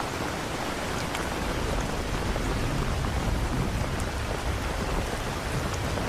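Steady rain with scattered drop ticks, and a low rumble that builds from about two seconds in.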